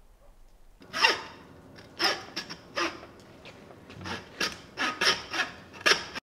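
Hand meat saw rasping back and forth through a lamb carcass, about ten uneven strokes starting about a second in, cut off abruptly near the end.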